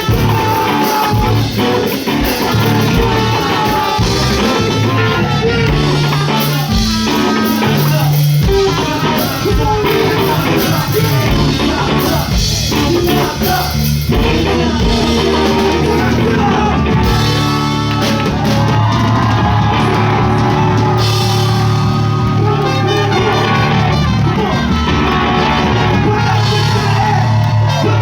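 Live band music with a drum kit and bass. The beat is busy at first and gives way to longer held notes about halfway through.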